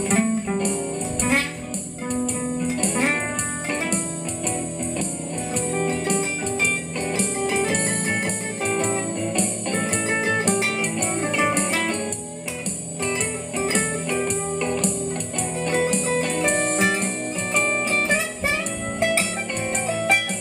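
Acoustic-electric guitar playing a blues improvisation: a steady run of plucked single-note lines, with some notes bent in pitch.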